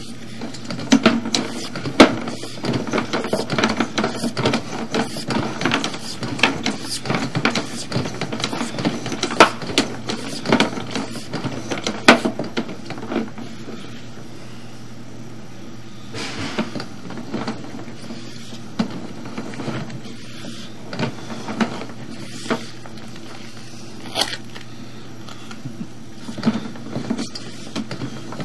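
Sewer scope camera being pushed down a drain line: the push cable and reel rattle and knock, densely for the first dozen seconds, then only scattered clicks over a steady low hum.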